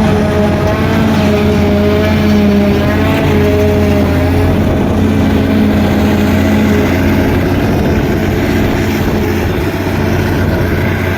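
Forage harvester's engine running steadily at working speed, a loud, even drone with a slight waver in pitch.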